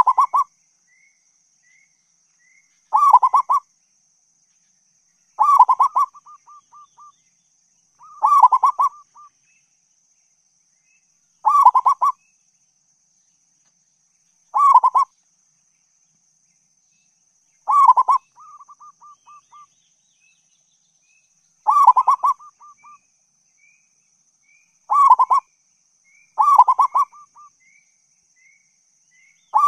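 Zebra dove (local perkutut) singing: a short pulsing coo phrase repeated about every three seconds, about ten times. Several phrases trail off in a run of soft, quick notes.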